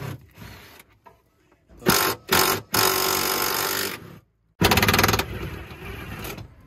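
Impact wrench hammering in bursts: a short pair about two seconds in, a longer run of about a second and a half, then after a sudden break another hard burst that tails off.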